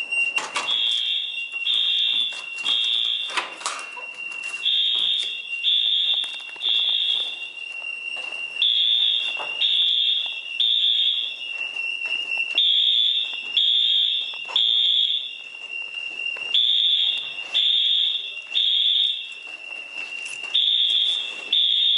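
Wheelock AS-24 fire alarm horns sounding the temporal-3 evacuation pattern: three short high blasts, a pause, then three again, repeating about every four seconds, with a steady high tone underneath.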